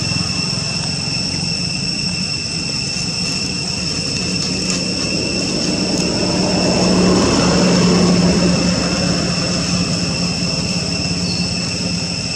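Low engine drone of passing traffic, swelling to its loudest about seven to eight seconds in and then fading, over a steady high-pitched whine.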